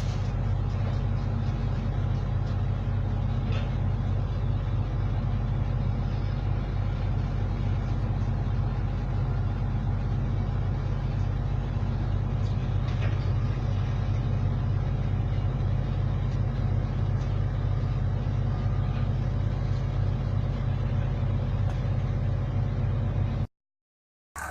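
Heavy machine's diesel engine running steadily at a constant speed, a low even drone that cuts off suddenly near the end.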